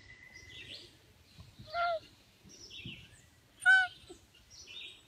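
A lynx giving two short, wavering meow-like calls, about two seconds apart.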